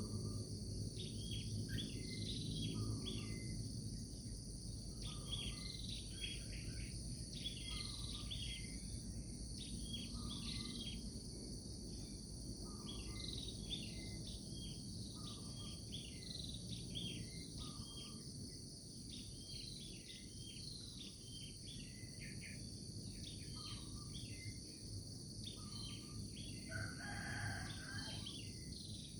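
Outdoor dawn chorus: insects trill in a steady high hiss while birds give many short, falling chirps and a repeated short call about every second and a half. Near the end, a longer, louder bird call lasts about a second and a half over a low background rumble.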